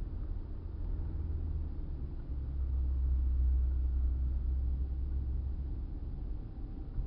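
A car's engine and road noise heard from inside the cabin while driving at town speed, a steady low rumble. The low note shifts about two seconds in and is strongest through the middle.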